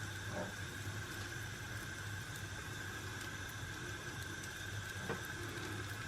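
Cabbage-leaf parcels frying gently in butter in a pan: a low, steady sizzle over a constant hum.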